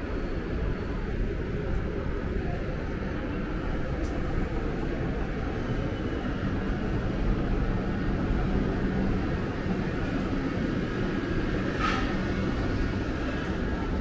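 Steady low rumble of outdoor town ambience, with a low hum that swells for a few seconds in the middle and a faint tap near the end.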